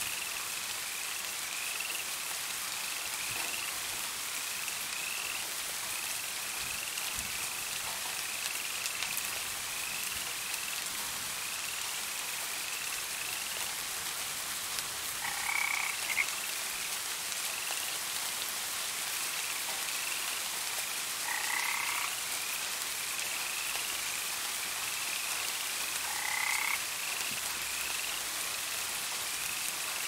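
Frogs calling over steady rain: a quick string of short, high chirps runs throughout, and three louder, lower calls come in the second half, about five or six seconds apart.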